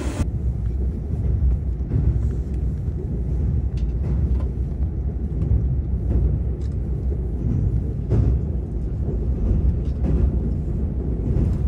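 Low, steady rumble of a moving train heard from inside the carriage, with a few faint clicks.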